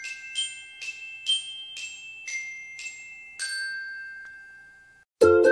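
Logo jingle of high, bell-like struck notes like a glockenspiel, about two a second, each ringing on; the last note rings out and fades over more than a second. Ukulele music starts right at the end.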